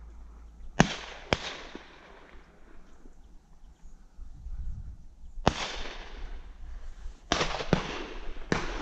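Hunters' shotgun shots, about six, mostly in quick pairs: two about a second in, one near the middle, two more soon after, and one near the end. Each shot trails off in a rolling echo.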